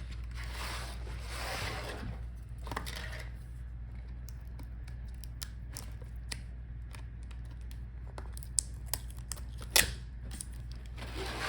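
Small laptop parts handled by hand during disassembly: a scraping, rustling noise for the first few seconds, then a run of small clicks and taps, two sharper ones near the end. A steady low hum lies underneath.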